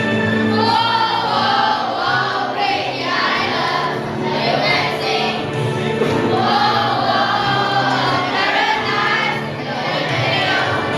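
A children's choir singing in English over a backing track.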